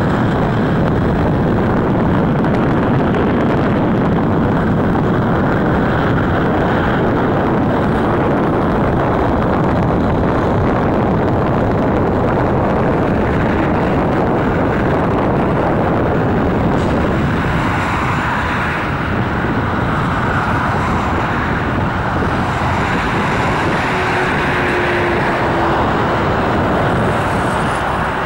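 Steady road traffic noise from cars driving along the roads and roundabout, a continuous rush of engines and tyres, with wind buffeting the camera's built-in microphone.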